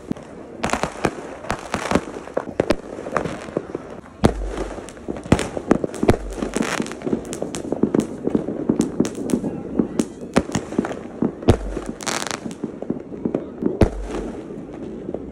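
Fireworks going off overhead: a dense, irregular run of sharp bangs and pops, with several heavier, deeper booms spread through, about four and six seconds in and twice near the end.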